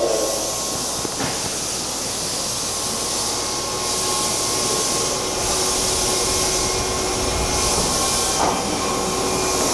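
Meitetsu electric trains at the platform: a steady hiss of air and running equipment with a faint steady whine, and a high hiss that swells and fades every second or so.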